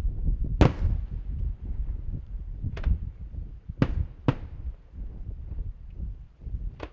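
Aerial firework shells bursting: five sharp bangs with echoing tails, the loudest about half a second in, with two close together near the middle, over a continuous low rumble.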